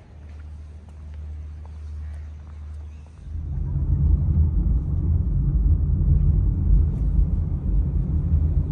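A faint steady low hum, then about three seconds in a much louder low rumble of a car on the move, heard from inside the cabin: engine and tyre noise on the road.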